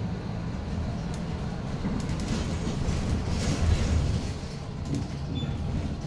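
Cabin ride noise of a Foton BJ5120 trolleybus on the move: a steady low rumble. A rush of noise swells about two seconds in and peaks near four seconds as another bus passes close alongside.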